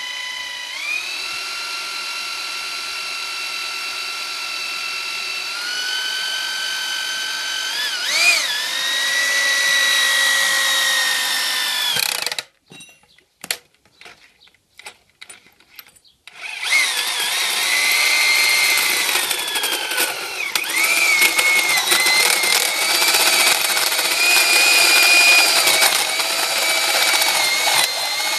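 Corded electric drill running with a steady whine as it bores into the steel filling port of an LPG tank, its pitch stepping up a few times. About twelve seconds in it stops, leaving a few seconds of near silence with a couple of clicks. Then it starts again, running rougher with a wavering pitch.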